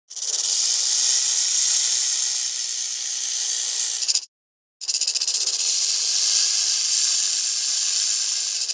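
Dilophosaurus hiss sound effect: two long, steady hisses of about four seconds each, separated by a brief silence about four seconds in.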